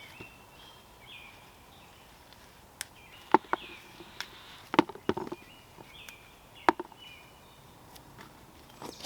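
Digging in garden soil to unearth potatoes: a run of sharp knocks and scrapes, loudest from about three to seven seconds in, over faint bird chirps.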